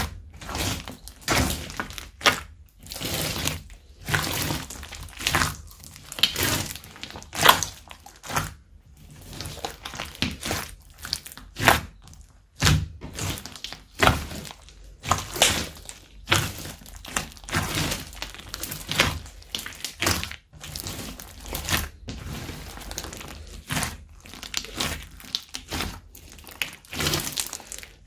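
Slime being mixed and squished, giving a string of irregular wet pops, squelches and crackles about one to two a second.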